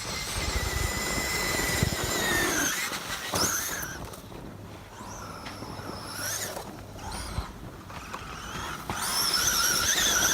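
Electric motor of a Traxxas E-Revo radio-controlled truck whining as it is driven, its pitch following the throttle. It holds a steady whine for the first few seconds, revs up and drops off a few times in the middle, and comes back louder with a wavering pitch near the end.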